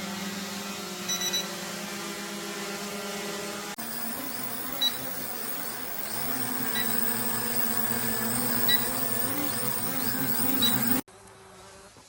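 Brushless-motor quadcopter drone's propellers buzzing steadily. About four seconds in the buzz changes, and short high beeps sound about every two seconds; near the end it cuts off suddenly to a much fainter hum.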